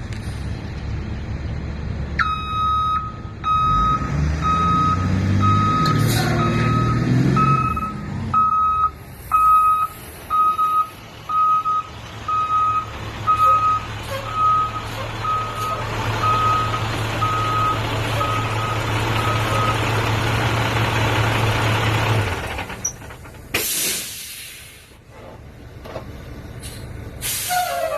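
IC CE bus with a DT466E diesel running while its backup alarm beeps about once a second; the engine rises briefly early on, then settles to a steady run. The beeping stops, and a couple of seconds later a sharp air-brake hiss of released air is heard, with a smaller hiss near the end.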